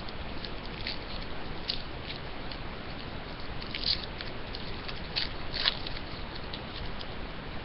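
Hockey card pack being opened and its cards handled: scattered short crinkles and crackles of the wrapper and card stock, a few sharper ones about four and five and a half seconds in, over a faint steady hiss.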